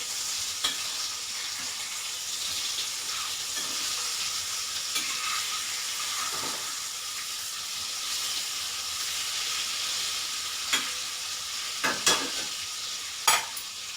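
Raw-banana kofta balls deep-frying in hot oil, a steady sizzle. A few sharp clicks or knocks come on top, mostly near the end.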